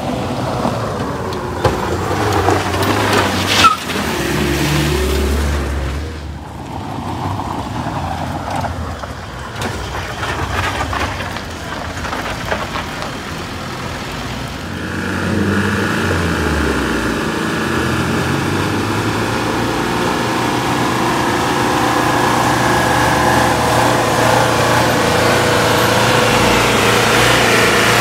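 Truck and pickup engines working up a steep climb. A loaded pickup drives past close by, then a truck engine runs hard and steady under load, getting louder toward the end. A brief sharp squeal comes about four seconds in.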